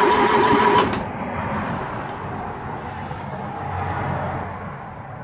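Starter motor cranking a 2.0 Ford Pinto SOHC four-cylinder with its spark plugs out: a steady whine with an even, quick pulse, turning over freely without firing while the oil system is primed. The cranking cuts off about a second in, leaving quieter low noise and a couple of faint clicks.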